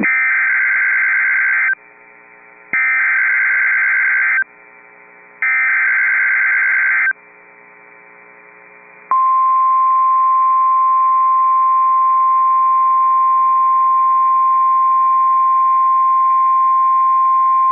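NOAA Weather Radio Emergency Alert System signal. Three bursts of SAME digital header data, each under two seconds with about a second's pause between them, encode the severe thunderstorm watch. About nine seconds in, the steady single-pitch 1050 Hz warning alarm tone starts and holds, signalling that a voice alert follows.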